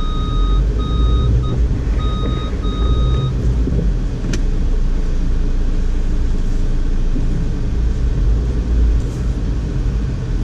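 2012 Audi A4 Quattro driving through deep snow, a steady low rumble. In the first three seconds an electronic beep sounds on and off, and a single click comes about four seconds in.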